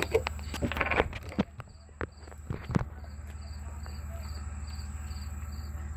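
A cricket chirping in an even rhythm, about two to three short high chirps a second, over a steady low hum. A few sharp clicks and handling noises come in the first couple of seconds.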